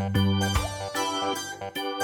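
Background music: a bright keyboard tune with a steady beat.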